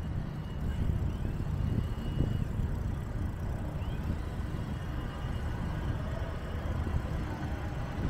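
Low, even rumble of distant road traffic, with two faint high chirps, one about a second in and one about four seconds in.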